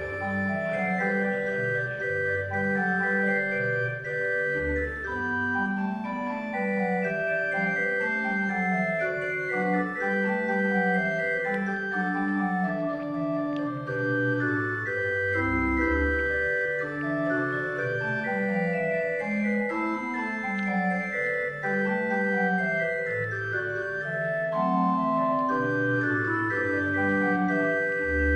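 Organ music: held chords in the upper notes over a slowly moving bass line, with deep low notes sounding now and then.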